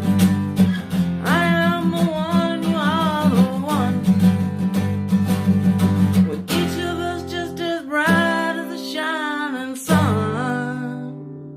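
Song accompaniment: an acoustic guitar strummed steadily under a wavering melodic line. The low notes thin out briefly about 8 seconds in, and the music fades near the end.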